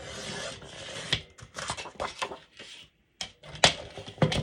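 Cardstock being slid and handled on a crafting desk: a papery rustle and scraping, with several sharp taps and clicks, the loudest near the end.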